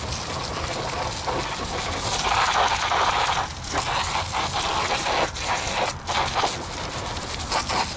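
Water from a garden hose spraying into a pool cleaner's debris basket to rinse out the debris packed in it, a steady hiss that swells and dips.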